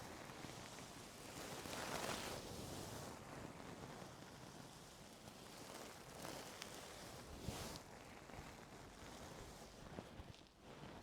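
Ear-cleaning tools scraping and rustling in an ear canal close to the microphone, a soft hiss that swells about two seconds in and again past seven seconds, with a few faint clicks.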